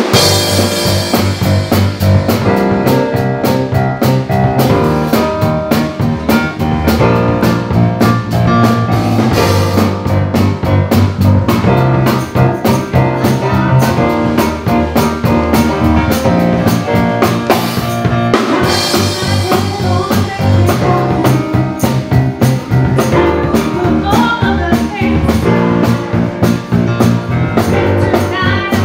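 Live band playing a song: drum kit, bass guitar and a woman's lead vocal.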